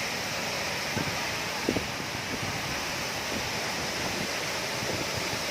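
Steady rush of a waterfall, an even wash of falling water, with two light knocks in the first two seconds.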